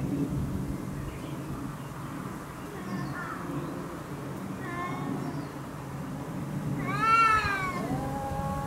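Cats yowling at each other in a threat standoff before a fight. A few faint short calls, then a loud yowl that rises and falls about seven seconds in, followed at once by a long, lower, drawn-out yowl that slowly falls.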